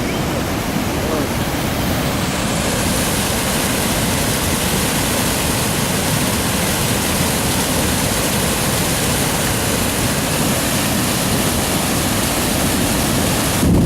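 Waterfall: a steady, loud rush of falling water, turning brighter and hissier a couple of seconds in.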